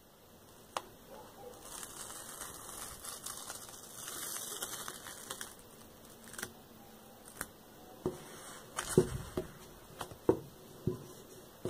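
A sticker being peeled off sock mesh that is stretched over a photo frame, a crackly tearing sound as its adhesive lets go. Near the end come several light knocks and clicks as the wooden frame is handled.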